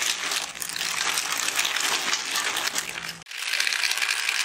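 A heap of small plastic-wrapped Shots chocolate packets tumbling onto a table, a dense crinkling rattle of wrappers. About three seconds in it cuts abruptly to a clatter of hundreds of chocolate balls pouring from a bowl onto a tray.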